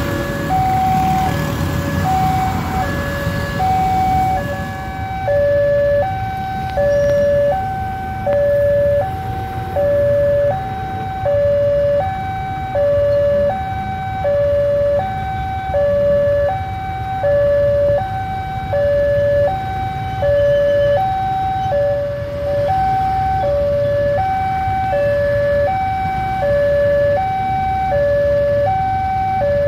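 Electronic two-tone warning signal of a railway level crossing sounding from its loudspeaker, alternating a higher and a lower tone, each held just under a second, as the barriers stay down for an approaching train. A low rumble of traffic runs underneath.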